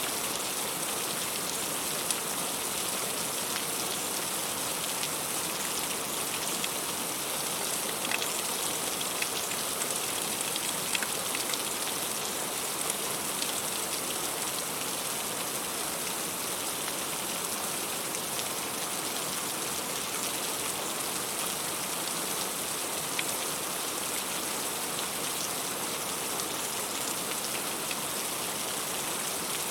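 Heavy rain falling steadily, a dense even hiss with scattered close individual drops ticking through it.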